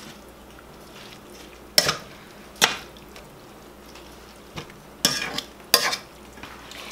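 Slotted metal spatula stirring wet ground turkey in taco sauce in a stainless steel skillet, scraping across the pan bottom. There are four quick strokes: two about two seconds in and two more around five to six seconds.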